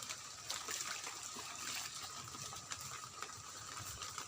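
Steady rain with scattered close drips, over two faint, steady high-pitched tones.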